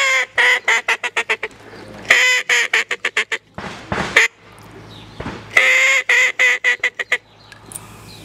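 American-style duck call blown in three runs of quacks. Each run opens with a longer note, then breaks into quicker, shorter quacks.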